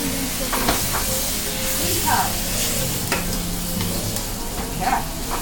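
Artichokes, spinach and white beans sizzling in olive oil in a sauté pan over a gas burner, stirred and tossed with metal tongs. The tongs give a few sharp clicks and short scrapes against the pan.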